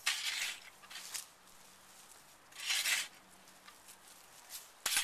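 Garden fork scooping and tossing compost onto a compost pile: about four short bursts of loose material landing, the strongest at the start and near three seconds in.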